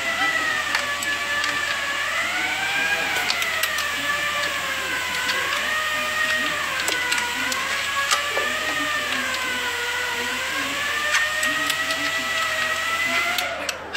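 A small motor runs with a whine that drifts slowly up and down in pitch, with scattered clicks over it, and cuts off abruptly near the end.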